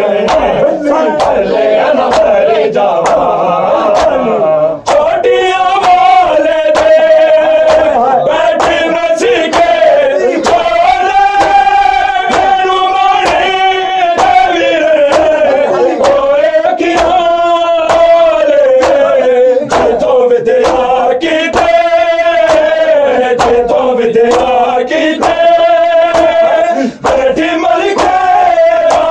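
Male voices chanting a noha (lament) in long, held notes that slowly rise and fall, over a steady beat of sharp strikes about twice a second.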